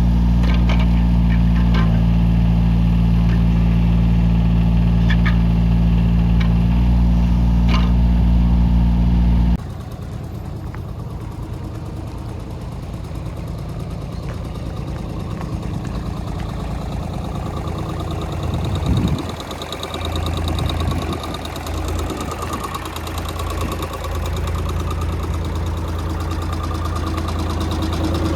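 Cat 303C mini excavator's diesel engine running. For about the first ten seconds it is loud and steady with sharp clicks over it. Then it changes abruptly to a quieter, lower running sound with a few short swells in level partway through.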